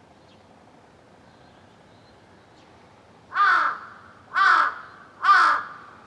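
Crow cawing three times, about a second apart, starting about three seconds in; each caw is a short, loud call that falls slightly in pitch.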